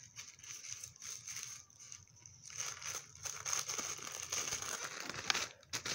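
Packaging crinkling and rustling as it is handled by hand, likely while an item is unwrapped, in a run of small irregular crackles.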